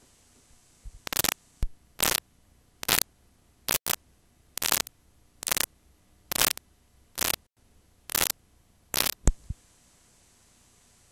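Blank videotape static between recordings: about ten short bursts of hiss at a regular pace, a little under one a second, over a faint steady hum.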